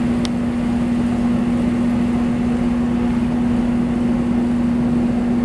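Steady machine hum: one constant low tone over a rumble that does not change.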